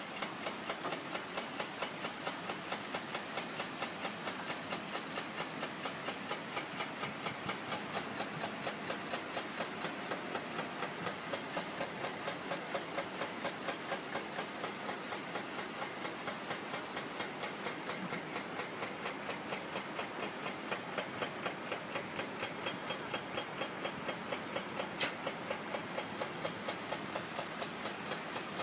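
Truck-mounted knuckle-boom crane running as it lifts a load, its engine and hydraulics making a steady mechanical noise with an even ticking, about four to five ticks a second.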